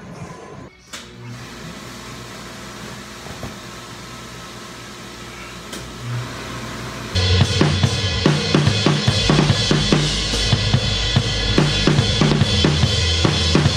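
Acoustic drum kit played in a steady beat, with kick drum, snare and cymbals. It starts suddenly about seven seconds in, after a quieter stretch of faint steady background sound.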